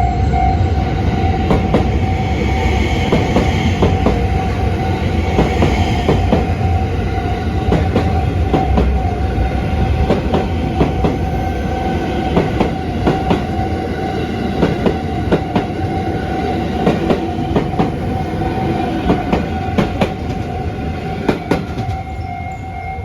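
Haruka limited express train (JR West 281 series electric multiple unit) passing over a level crossing, its wheels rumbling and clicking sharply over rail joints, the clicks coming thickest through the middle and the noise easing off near the end. The crossing's warning bell rings steadily throughout.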